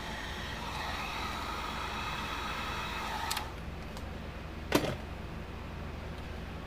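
Electric heat gun running with a steady blowing hiss, switched off with a click about three seconds in. A single sharp knock follows about a second and a half later.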